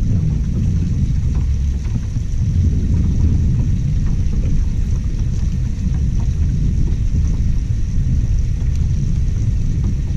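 Wind buffeting the microphone: a loud, steady low rumble that swells and dips with the gusts.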